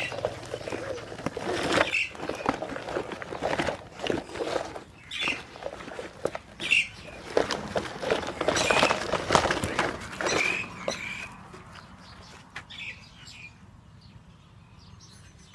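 Plastic toy dump truck pushed over dry dirt and gravel: its wheels crunch and scrape and the hollow plastic body rattles in irregular bursts, dying down after about eleven seconds.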